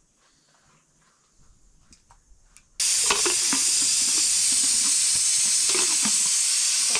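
Food sizzling loudly in hot oil in a cooking pan. The sizzle starts suddenly about three seconds in, with the scrape and knock of stirring, and stops abruptly at the end.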